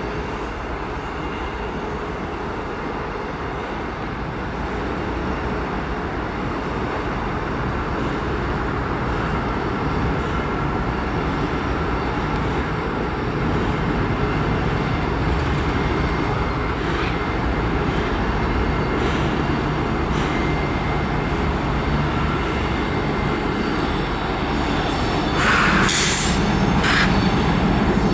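Diesel freight locomotives led by an EMD SD50-3 with a 16-cylinder EMD 645 engine, drawing closer and rolling over a steel trestle at low speed. The engine noise and the wheel rumble grow steadily louder, with a couple of brief, sharper high-pitched sounds near the end.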